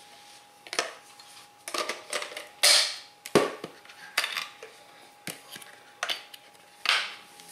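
Hard plastic knocks, scrapes and clicks, irregular and some fairly loud, as a Hart 20-volt battery pack is handled and fitted into the battery slot of a Hart cordless pressure cleaner.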